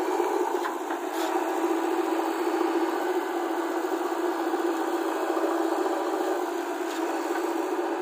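Diesel engine of a JCB 3DX Plus backhoe loader running steadily under load while its rear backhoe arm digs soil.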